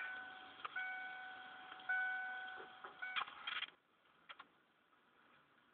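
A chime-like pitched note struck three times, about a second apart, each ringing down slowly, then a short cluster of clicks.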